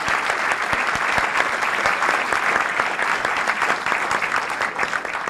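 Audience applauding, a dense, steady clapping that holds at an even level.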